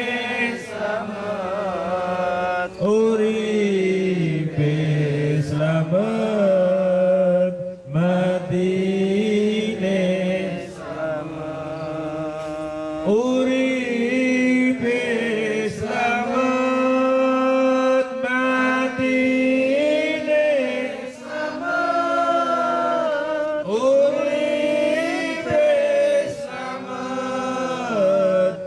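A man's voice chanting an Islamic devotional melody into a microphone, in long held notes that waver and bend, with short pauses for breath.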